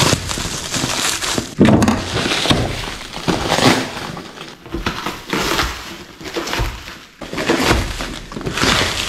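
Packaging being torn and pulled off a boxed knife sharpener: irregular bursts of ripping and rustling wrap, with a sharp tear about a second and a half in.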